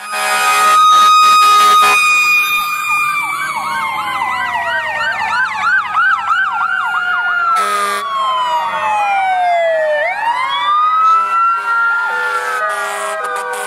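Several emergency vehicle sirens sounding at once: a steady high tone that slowly falls, with fast rising-and-falling yelps over it, then a wail that dips low about ten seconds in and climbs again.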